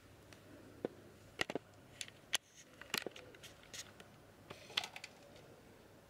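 Light, sharp clicks and taps on a clear plastic tub, about eight scattered over the first five seconds, as a slow loris reaches in among house crickets.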